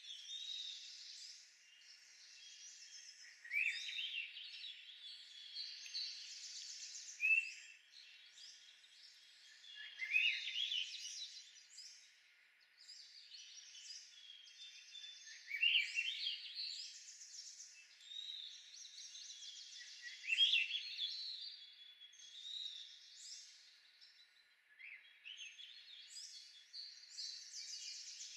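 Songbirds singing, with chirps and quick rising phrases recurring every few seconds. The sound is thin and high, with no low end at all.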